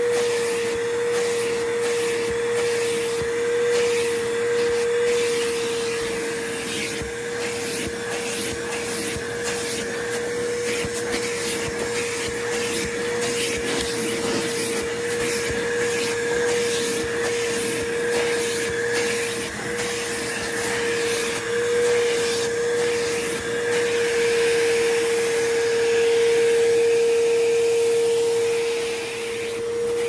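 Bissell PowerForce Bagged upright vacuum running steadily, its nozzle drawn over fabric chair upholstery. A steady motor whine sits over the rush of suction, with frequent short crackles as the nozzle works the cloth. It grows a little louder near the end.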